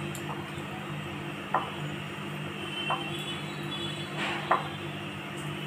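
Paneer cubes set one by one into a glass bowl, making four light knocks against the glass over a steady low hum.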